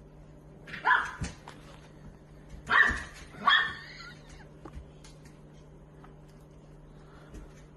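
A dog barking three short times: once about a second in, then twice in quick succession around three seconds in.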